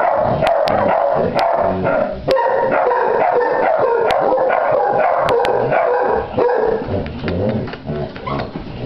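A hound barking and baying over and over in a near-continuous run, easing off and stopping near the end.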